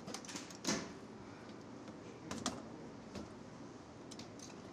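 Scattered light clicks and knocks of gear being handled: an SCBA air pack and its hinged swing-out bracket panel in a fire engine's side compartment. The loudest knock comes under a second in, with a few softer ones later.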